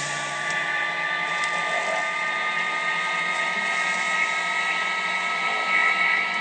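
Metal lathe running with a steady high whine: several even tones over a hiss.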